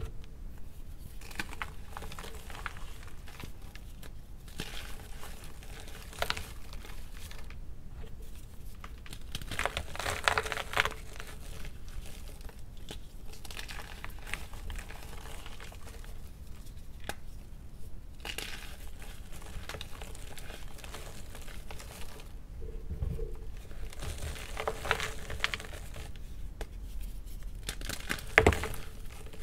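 Blocks of gym chalk crumbled and crushed by hand: dry crunching and crackling in irregular bursts, loudest about ten seconds in, with a sharp crunch near the end.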